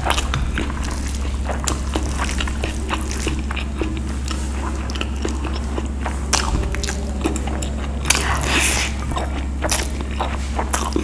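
Close-miked chewing of a mouthful of vegetable pulao eaten by hand, with many short wet smacks and clicks of the mouth and a denser, louder stretch about eight seconds in as more rice is pushed in. A steady low hum runs underneath.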